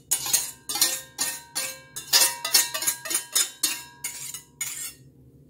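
Wire whisk scraping and clinking rapidly against the inside of a mixing bowl, about three to four strokes a second with a light metallic ring, as the last of the quiche's egg and cream mixture is scraped out; it stops near the end.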